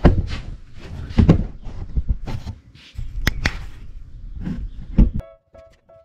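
Irregular knocks, bumps and clatter of handling a plasterboard ceiling sheet and a telescopic ceiling prop into place. About five seconds in, this stops and soft plucked music begins.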